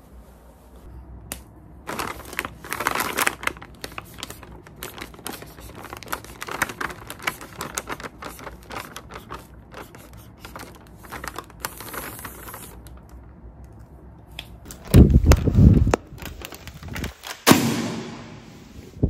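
Marker pen scratching across a plastic mailer bag in quick strokes while the plastic crinkles under the hand. Near the end come two louder handling noises, a heavy thump and a rustle.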